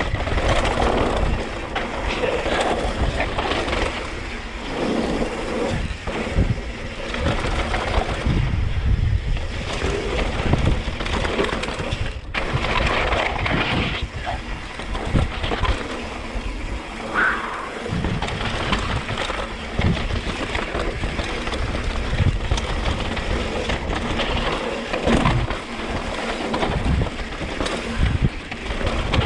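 Yeti mountain bike riding down a rough dirt trail: tyres grinding over dirt and stones, with frequent knocks and rattles from the bike over bumps. Wind rushes over the microphone the whole time.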